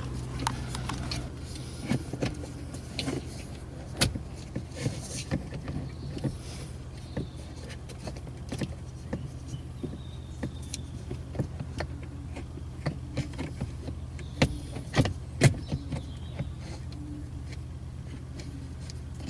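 Irregular plastic clicks, taps and knocks as the headlight switch and its dashboard trim are worked back into place by hand, over a steady low hum. The loudest knocks come about four seconds in and again in a cluster near the end.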